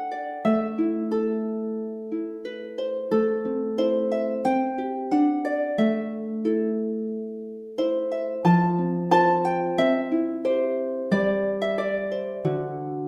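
Background instrumental music: a calm melody of plucked-sounding string notes, each ringing and fading, over sustained lower bass notes.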